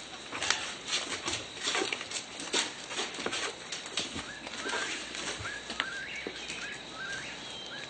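Birds chirping, a short upward-stepping chirp repeated every half second or so through the second half, with scattered light knocks and rustles in the first half.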